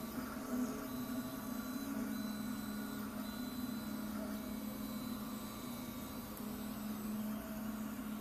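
MINGDA MD16 industrial FDM 3D printer running a print: its stepper motors and cooling fans make a steady whirring hum, a few of its tones shifting and dropping in and out as the print head moves.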